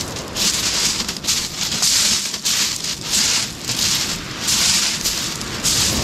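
Footsteps crunching on loose white pebbles at a steady walking pace, about one and a half steps a second, over a steady rush of surf and wind.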